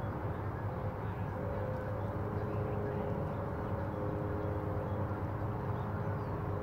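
Steady low outdoor drone with a few faint, even humming tones, like distant machinery.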